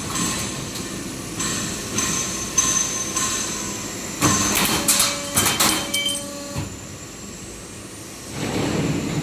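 Automatic HVAC duct production line running: steady machine noise with a few steady tones. A cluster of sharp metallic knocks and clanks comes about four to six seconds in, and a low rushing swell rises near the end.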